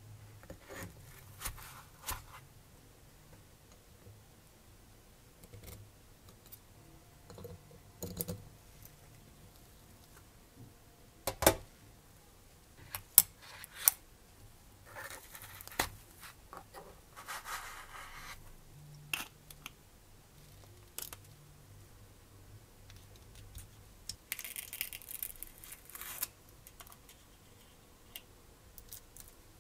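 Metal tweezers clicking and scraping while picking small parts out of a foam tray and a plastic box of screws and nuts: scattered sharp taps, with a few brief rustling scrapes.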